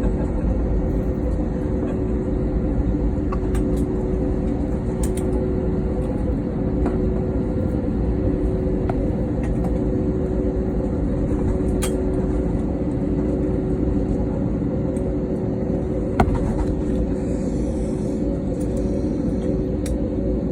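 Steady airliner cabin noise: engine and airflow rumble with a steady hum, and one sharp click about three quarters of the way through.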